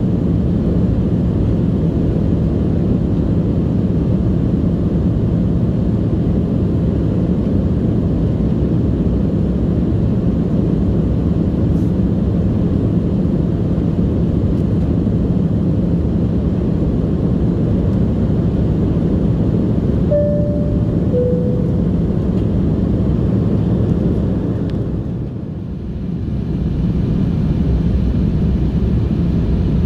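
Steady low cabin noise of a jet airliner in flight, engines and airflow heard from a window seat over the wing. About twenty seconds in, a two-note falling cabin chime sounds, and a few seconds later the noise dips briefly.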